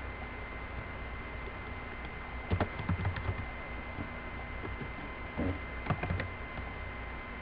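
Computer keyboard keys clicking in two short bursts of typing, about two and a half seconds in and again about five and a half seconds in, over a steady background hiss.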